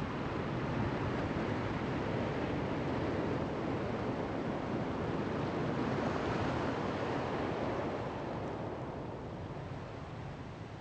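Steady rushing noise of wind and open water, without any tone or beat, that swells up at the start and slowly fades over the last few seconds.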